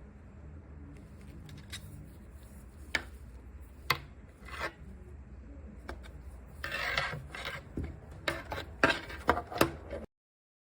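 Scraping, rubbing and sharp clicks of a small USB-C hub's casing being worked open by hand, with a longer scrape about seven seconds in and a quick run of clicks after it; the sound cuts off abruptly near the end.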